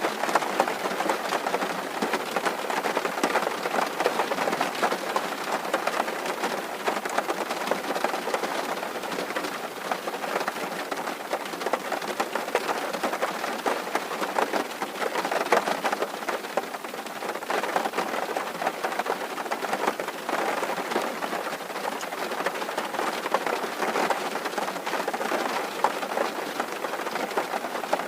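Steady rain falling on a tin roof: a dense, even patter of countless small drop hits that holds without let-up.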